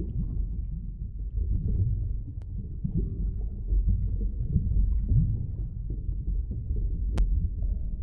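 Underwater ambience: a steady low rumble with a few short rising low tones and scattered faint clicks, and one sharp click about seven seconds in.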